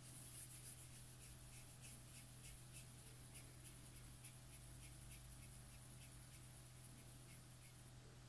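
Faint, soft swishing of palms rolling a ball of cookie dough, about three strokes a second, stopping near the end.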